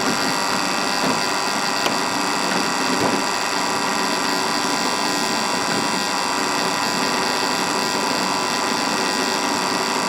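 Drill press running steadily, its twist bit cutting a hole in a curved steel fitting held in a machine vise.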